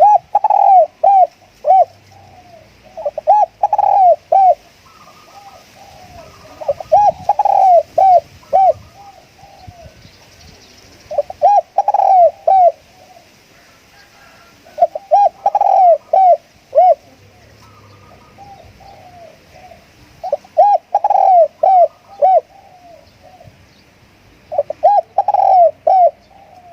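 Spotted dove cooing in repeated phrases of several coos, about one phrase every four seconds, with softer coos in between. It is a decoy call, the kind used to lure wild spotted doves.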